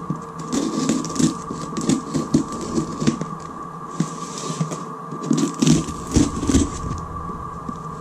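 Box cutter slicing and scraping along the packing tape of a cardboard shipping box in many short strokes, with knocks and rustles of the cardboard as the box is turned around.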